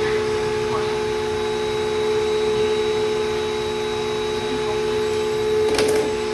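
Vacuum-assisted hair clipper running: the suction hose and clipper give a loud, steady drone while the clipper trims around the ear and neckline, drawing the cut hair away. A short scratchy burst comes about six seconds in.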